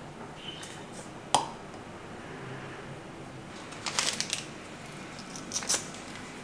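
A glass cup set down on a wooden plate with one sharp clink and a short ring about a second in, then crisp crackling rustles of a tea-bag wrapper being torn open and handled, in two short spells.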